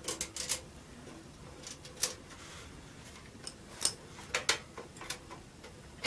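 Scattered small clicks and taps of hands working a graphics card free from a desktop PC's motherboard slot, with a few sharper clicks in the middle.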